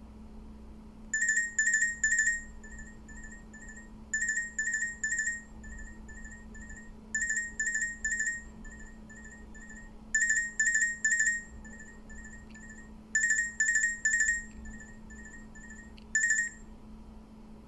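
Sony Ericsson T300 ringtone played on a Nokia 202 through an external Denn DBS141 speaker: single-pitch electronic beeps in a pattern of three loud beeps followed by a run of quieter short beeps. The pattern repeats about every three seconds, six times, and the last round stops after one beep.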